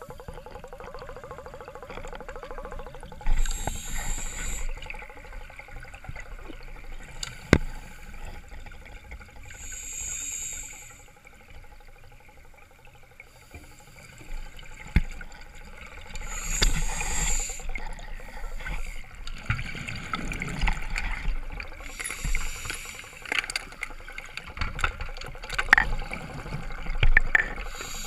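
Open-circuit scuba regulator breathing underwater: a short hissing inhalation about every six seconds, each followed by a longer rush of exhaled bubbles. A single sharp knock about seven seconds in.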